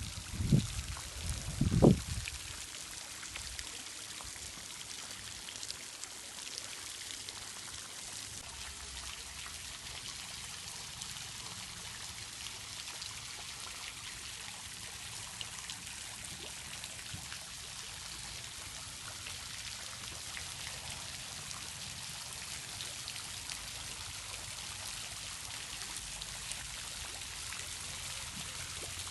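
Steady trickling and pouring of running water, with faint drips ticking through it. A few loud low thumps come in the first two seconds.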